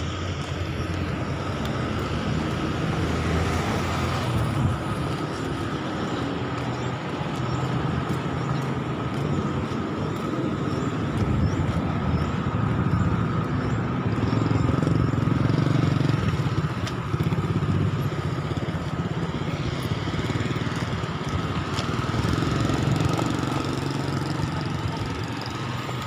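Road traffic passing on a busy street: a steady rumble of car and motorcycle engines and tyres, swelling as vehicles go by.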